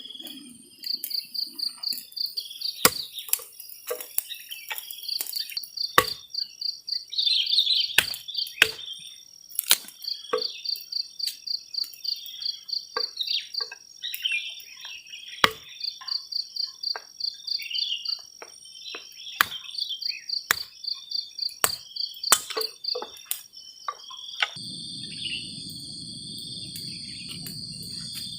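Night insects, crickets by their sound, chirping in fast pulsed trills, over frequent sharp clicks and knocks. About three-quarters of the way through, a steady low rushing noise sets in.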